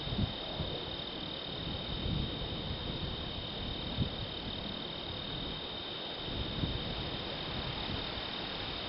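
Steady high-pitched insect chorus in the prairie grass, with wind buffeting the microphone in uneven low gusts.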